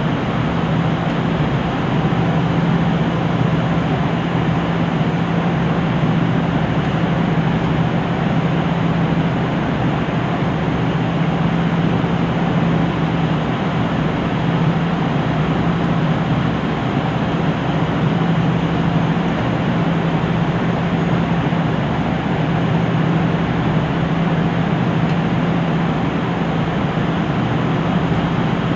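KiHa 75 diesel railcar's engine idling while the train stands at a platform, heard from inside the car as a steady low hum that does not change.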